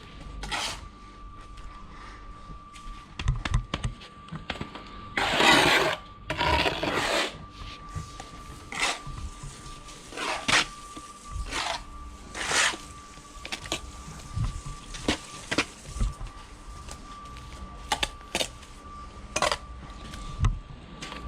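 Bricklaying hand work: a steel trowel scraping and tapping on mortar and concrete blocks, more than a dozen short strokes with two longer scrapes about five and six seconds in. A faint steady high hum runs underneath.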